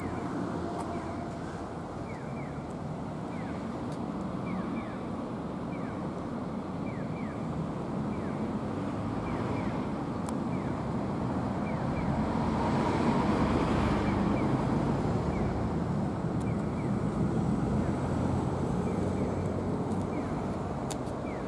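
Steady outdoor background of passing road traffic with wind on the microphone, swelling a little in the middle. Faint short high chirps recur irregularly about once a second.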